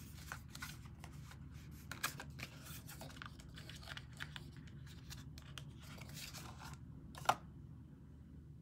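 Faint handling of cosmetic packaging: a small cardboard product box being opened and a powder jar taken out, heard as scattered light rustles and clicks with one sharper click near the end.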